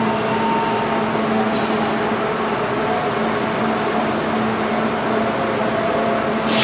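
Steady hum and whirr of a Kintetsu 21000-series Urban Liner Plus electric train standing at the platform, its onboard equipment and fans running, with a few steady tones in the hum.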